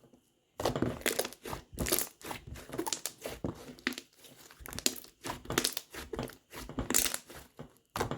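Slime being squished and worked by hand, a run of irregular crackles and pops in bursts that start about half a second in.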